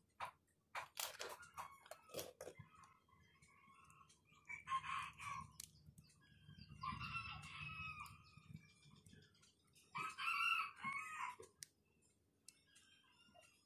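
A rooster crowing three times, about 5, 7 and 10 seconds in. Before that, a few sharp clicks of small phone parts being handled.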